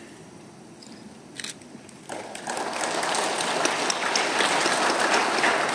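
Quiet room tone, then about two seconds in an audience breaks into applause, which swells quickly and keeps going.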